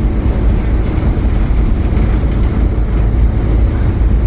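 Steady low rumble of a vehicle's engine and motion, heard from on board, constant throughout.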